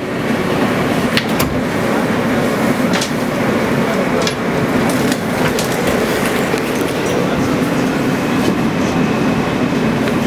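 Inside a New York subway car: the steady hum and rumble of the train with scattered sharp clicks and knocks, as it starts to pull away from the platform. A faint high whine joins in near the end.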